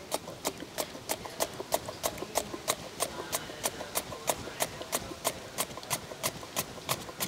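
Peeled raw potato being pushed over a handheld steel slicer blade, a quick crisp rasp at each stroke, about three to four strokes a second, as thin slices fall into a bowl of water. The crisp 'gasa gasa' rasp is the sign of a fresh, firm potato.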